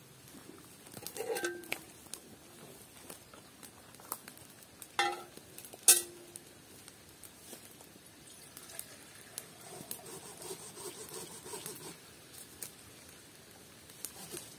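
Wood campfire crackling, with sharp metallic clanks about 1, 5 and 6 seconds in as a metal pot is set on the fire's grill; the last clank is the loudest and rings briefly. Later, water is poured from a clay jug into the pot for a few seconds.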